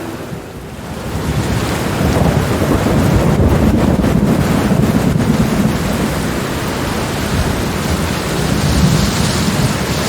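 Heavy rain with thunder rumbling, the rumble swelling about two seconds in and rolling on.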